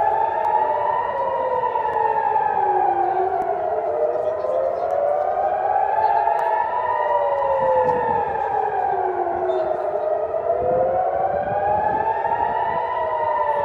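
Civil-defence air-raid sirens wailing, their pitch rising and falling slowly, about once every six seconds, with two sirens sounding slightly out of step: the rocket-attack warning.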